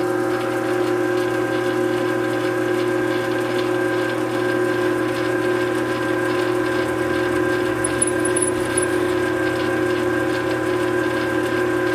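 Shop Fox hobby metal lathe running steadily, its motor and drive giving a constant whine of several pitches while it turns down a 1-inch steel pipe with a slow, light cut.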